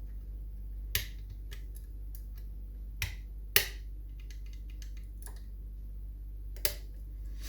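Scattered light clicks and ticks of homemade wire picks and a tension tool working the levers inside a Union 2134 five-lever mortice lock, a handful of sharper clicks standing out, the loudest about three and a half seconds in, over a steady low hum.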